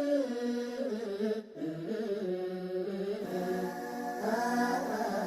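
Background music with a singing, chant-like voice holding long notes that slide between pitches, with a brief break about one and a half seconds in.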